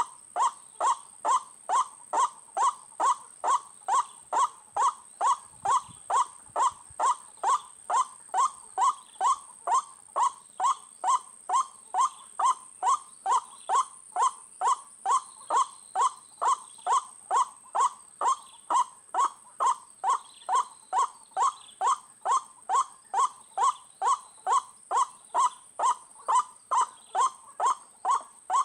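White-breasted waterhen's short, harsh 'kwak' call, repeated steadily about twice a second, each note dropping slightly in pitch.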